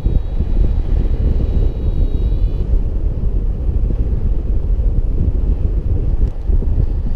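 Wind rushing over the camera microphone during paraglider flight, a steady low rumble of buffeting air. A faint steady high tone sounds under it until about two and a half seconds in.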